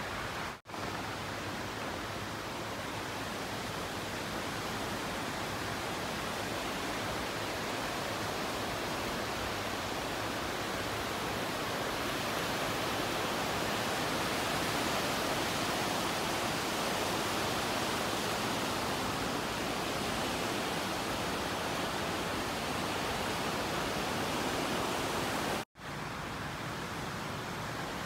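Steady, even rushing noise of outdoor ambience that stays much the same throughout, cutting out for a moment twice, once just after the start and once near the end.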